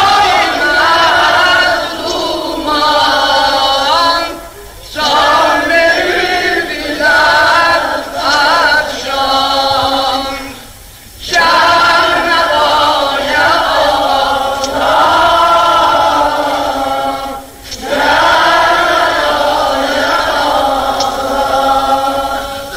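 Azerbaijani Turkish mourning elegy (noha) sung by several voices together in long, slow, drawn-out phrases, breaking off briefly about 5, 11 and 17 seconds in.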